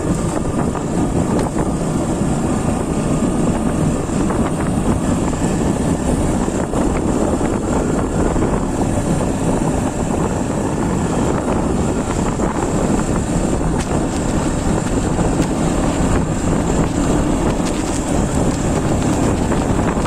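Motorcycle engine running steadily in low gear on a rough, broken road, with wind buffeting the microphone.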